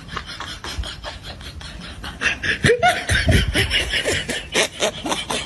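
A person snickering in quick, breathy puffs of held-back laughter, breaking into louder voiced laughing a little past two seconds in.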